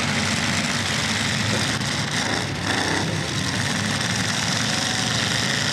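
Several demolition derby cars' engines running together in the arena, a steady, dense mechanical din with no break.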